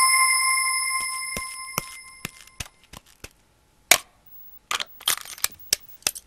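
A bright chime rings out and fades over about two and a half seconds, followed by a string of sharp clicks, one louder about four seconds in and a quick run near the end, as the handset of a red coin-box payphone is handled.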